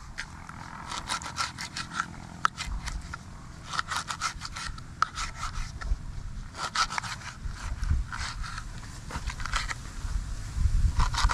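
Quick scraping strokes in short, irregular bursts, over a low rumble.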